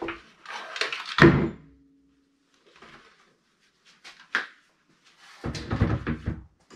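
Handling noises from a large 1/5-scale RC truck on a wooden workbench: rustling, then a heavy thunk about a second in as it is set down, with a brief ringing after. A small click follows, and more knocking and rustling come near the end.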